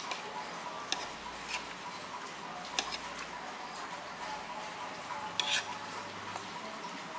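Metal cutlery clinking against a plate a few times while eating, with a short cluster of clinks about five and a half seconds in, over steady eatery background noise.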